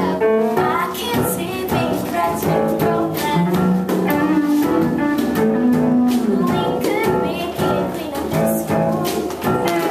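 Upbeat musical-theatre backing track playing loud and steady, with girls' voices singing the number over it.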